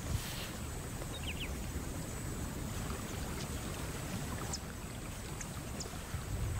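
Steady wetland ambience: a low rumble under a wash of water-like noise, with a few faint high chirps and ticks.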